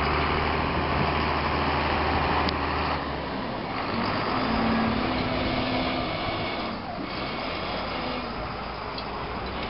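Heavy farm machinery engines running steadily during maize chopping for silage. The deep engine hum drops back about three seconds in, and a steady mid-pitched tone sounds briefly near the middle.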